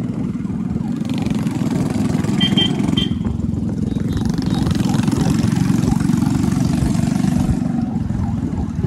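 Motorcycle engine running on the move, with heavy wind rumble on the microphone. Two short high beeps, likely a vehicle horn, sound about two and a half and three seconds in.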